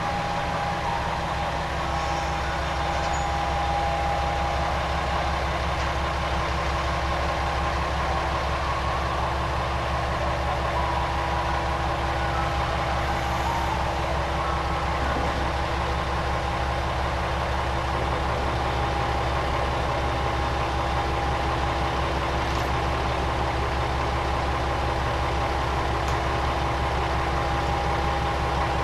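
Diesel railcar engine idling steadily: an even low hum that does not change, with a faint steady higher whine over it.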